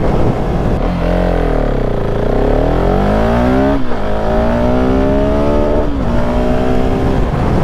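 Husqvarna 701's single-cylinder engine under hard acceleration: the engine pitch dips and then climbs, drops sharply at an upshift about four seconds in, and climbs again to a second shift about six seconds in.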